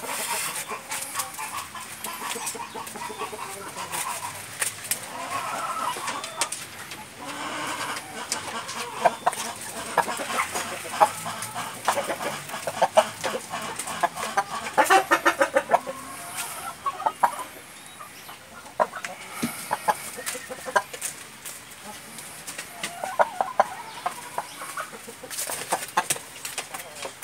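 Índio Gigante chickens clucking: short calls in uneven bursts, busiest around the middle.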